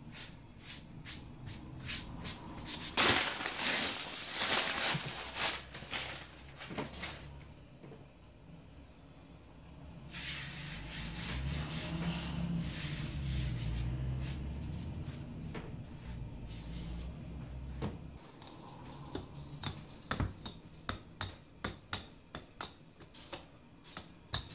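Hands working croissant dough on a floured countertop: rustling and rubbing, then a longer stretch of rubbing across the surface. In the last several seconds a wooden rolling pin rolls the dough out with a quick run of light knocks.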